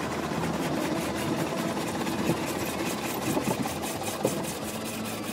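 Automatic car wash heard from inside the car: rotating brushes and water spray washing over the windshield on top of a steady machinery hum, with a fast, even rhythm of strokes.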